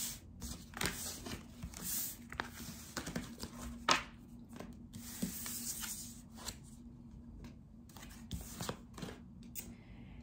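Tarot cards being swept and slid across a wooden tabletop and gathered up: a string of short, irregular scraping and rustling sounds with a few light taps.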